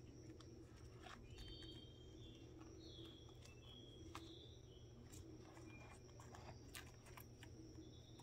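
Faint, irregular crisp clicks and crunches of a Hermann's tortoise biting and chewing romaine lettuce, over a steady low hum.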